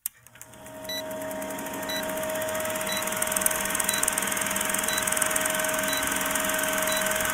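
Old-film countdown sound effect: a movie projector's steady whirring rattle, fading in over the first second, with a short high beep once a second as the leader counts down.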